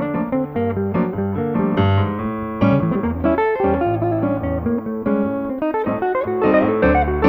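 Hollow-body archtop electric guitar and a Kawai MP4 digital stage piano playing a bossa nova together, with the guitar most prominent.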